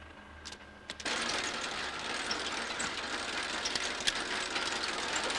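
Tunnelling machine's pick-studded cutter head cutting into rock: a dense, rattling clatter that starts suddenly about a second in, after a quieter moment with a couple of sharp clicks.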